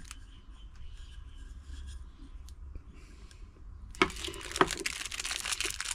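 Quiet handling of a plastic hand-held shower head and a 12-volt plug: faint rubbing at first, then a knock about four seconds in as the shower head is set down on the table, followed by rubbing and rustling that grows louder toward the end.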